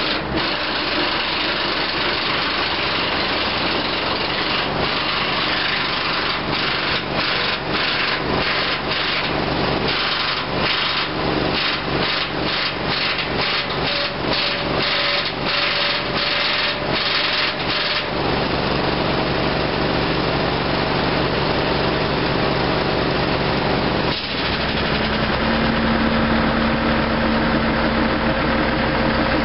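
Heavy diesel mining equipment running steadily, with a fast, uneven pulsing in its sound between about six and eighteen seconds in. A steady hum or whine joins a little after a brief dip near the end.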